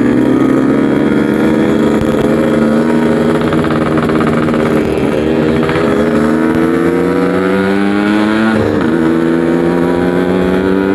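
Yamaha RX-King 135cc two-stroke single-cylinder motorcycle running through a 'packing power' aftermarket exhaust while under way. Its pitch climbs steadily as it pulls, drops briefly about six seconds in and again near nine seconds as gears change, then climbs again.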